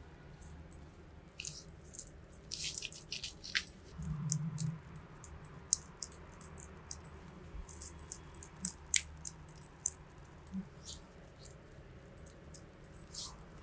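Fingertips working a thick cream face mask over skin close to the microphone: irregular wet, sticky clicks and crackles, with a soft low thud about four seconds in.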